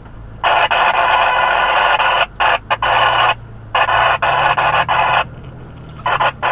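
Two-way radio hissing with loud static in several bursts that cut in and out, like a broken-up transmission with no voice. A vehicle engine runs low underneath.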